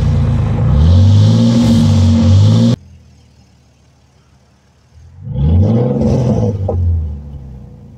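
Ford Mustang 4.0 V6 on a true dual exhaust with shorty headers and no H-pipe or X-pipe, revved while standing: loud rising and falling blips until an abrupt cut about three seconds in. Then a much quieter idle, and one more rev about five seconds in that climbs and falls away.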